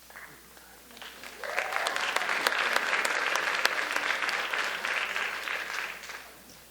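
Audience applauding, swelling up about a second and a half in and dying away near the end.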